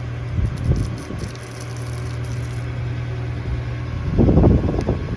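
An engine idling with a steady low hum. From about four seconds in, a rough, flickering rush of noise rises over it.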